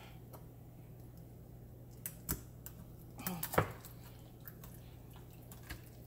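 A knife cutting a whole raw chicken down the middle on a wooden cutting board: a few short, sharp clicks and cracks of the blade through bone and joint, most of them about two to four seconds in, over a faint steady low hum.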